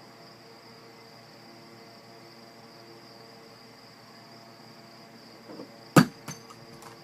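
A cat batting at an object on a wooden dresser top: one sharp knock near the end, then a few lighter taps and clicks. Under it a steady faint high-pitched trill like an insect's.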